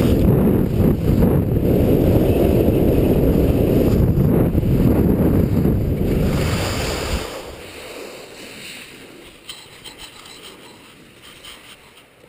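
Heavy wind rushing over a GoPro camera's microphone during a fast downhill ski run, a loud low rumble that falls away sharply about seven seconds in as the rider slows. After that, only a quiet hiss with a few faint clicks.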